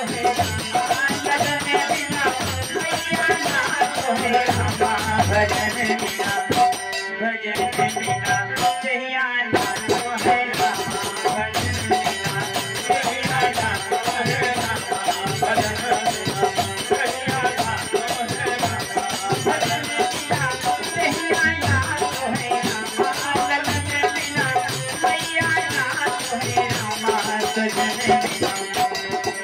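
Live Indian folk bhajan: a harmonium, with a dholak drum beating a steady rhythm and a rattling percussion keeping time under a male singer. The music thins out briefly about seven seconds in, then picks up again.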